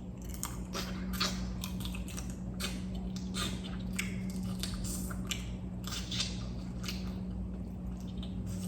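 A person chewing mouthfuls of egg close to the microphone, with irregular mouth clicks and smacks throughout, over a steady low hum.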